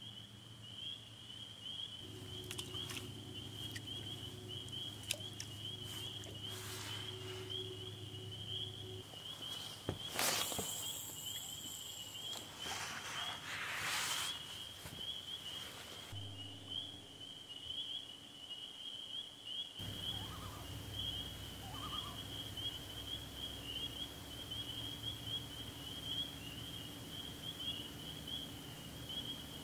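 A chorus of calling frogs making a steady, high, fluttering trill, with a low hum beneath it. Brief noisy rustles about ten to fourteen seconds in are the loudest sounds.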